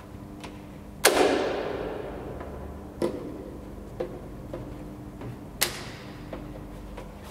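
Several sharp knocks and clicks with a long echoing tail, as in a concrete parking garage. The two loudest come about a second in and just past halfway, over a steady low hum.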